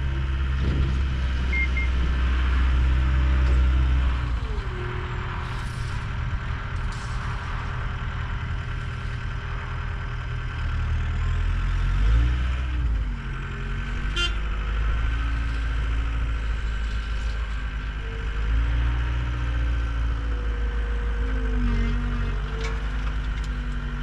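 John Deere 320D skid steer's diesel engine running as the machine works, its pitch dropping and rising every few seconds as throttle and load change, with a few short knocks.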